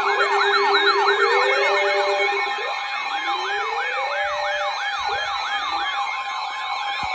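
Several electronic sirens sounding at once: a fast yelp sweeping up and down about three times a second over slower rising wails, with a steady tone held beneath.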